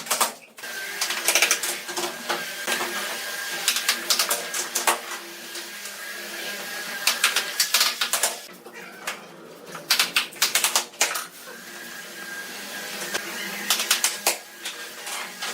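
Bursts of rapid, sharp tapping and knocking on bamboo, each about a second long, coming six or so times. A faint steady high whine sits between the bursts.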